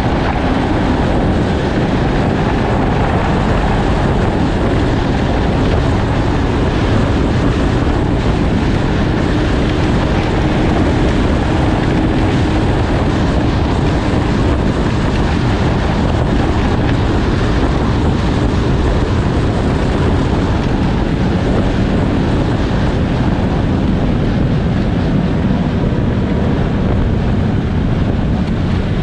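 Snowmobile engine running steadily while riding, with wind rushing over the microphone.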